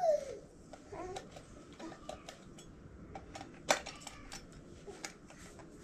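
Small, irregular plastic clicks and taps of a toy remote control being handled while a battery is fitted into it, with one sharper click a little past the middle.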